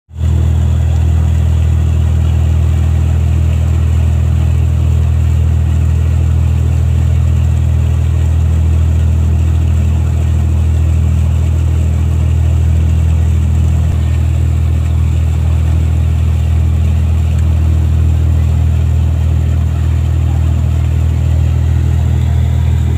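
Passenger boat's engine running steadily at cruising speed, a deep even drone, with the rush of the wake along the hull.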